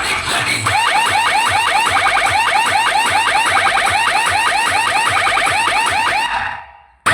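Electronic car-alarm-style siren tone, a rapid run of rising chirps repeating several times a second, loud and steady. It fades out near the end and breaks off briefly before starting again.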